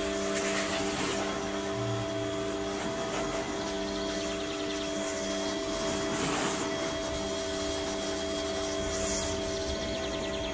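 Pressure washer running steadily: a constant motor hum under the hiss of the water jet rinsing the car's lower bodywork and wheel during the pre-wash.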